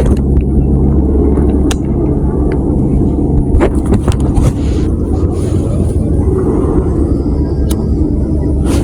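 Engine running steadily at a constant speed, with a continuous low hum and some rushing noise over it.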